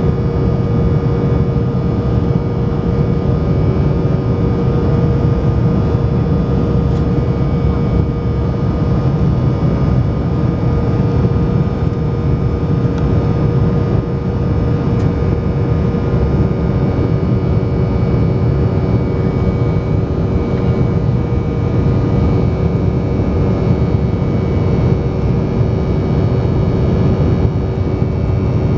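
Steady cabin roar of an Embraer 190 in flight, heard from a window seat beside the wing. The deep rumble of its GE CF34-10E turbofan engines and the rush of air carry a few steady engine tones above them.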